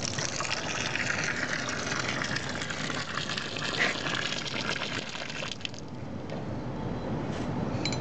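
Hot water from a solar water heater's outlet pipe gushing into a steel bowl and splashing onto the wet ground, then stopping about two-thirds of the way through.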